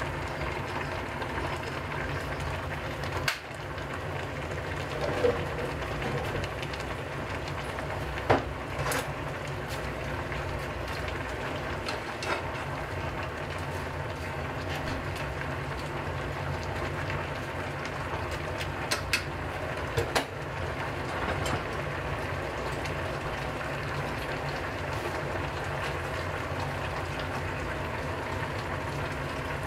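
Aluminium saucepan of soy-sauce and mirin broth simmering under a foil drop-lid on a gas burner: a steady low bubbling and burner rush, with a few sharp clicks of chopsticks and a spoon against the foil and pan.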